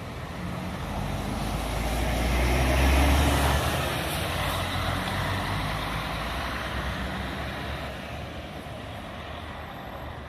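Intercity bus's diesel engine passing close by, growing louder to a peak about three seconds in, then fading as it pulls away.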